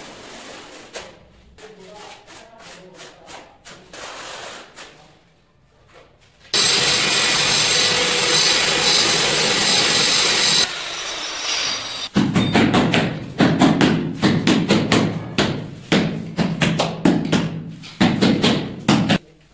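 A power tool running steadily and loudly for about four seconds, then cutting off suddenly; after a short pause comes a rapid run of dull knocks as a large ceramic wall tile is patted and pressed into fresh tile adhesive by hand.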